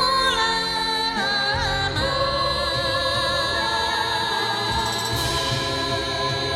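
A woman singing long, high held notes with vibrato over a backing track. The cheap headset condenser microphone gives the high notes a slightly electronic, auto-tune-like edge.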